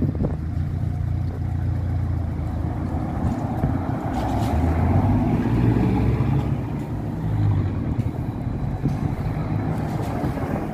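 Road traffic rumbling at a city junction, loudest around the middle as vehicles pass close, with a BKM-321 trolleybus drawing up right beside the microphone near the end.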